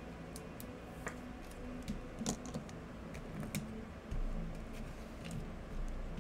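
Trading cards being handled and flipped through by hand, making light, irregular clicks and taps, the loudest a little past two seconds in.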